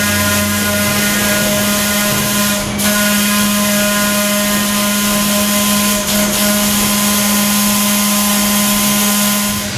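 Electric trolley car running along the track, heard from inside: a steady motor and gear hum at one pitch over a loud rush of wheel and track noise, with brief dips about three and six seconds in.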